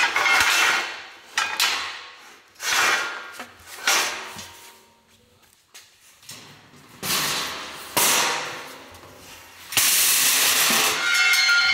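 Metal tower-blind parts clanking and knocking as they are moved and set down: a series of separate clanks, several with a short ringing tail, the longest near the end.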